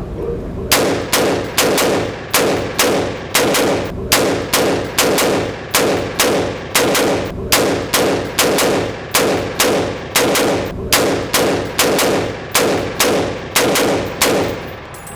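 AR-15 rifle firing a long string of about twenty single shots at a steady pace, roughly one and a half shots a second, each crack followed by a short ringing echo.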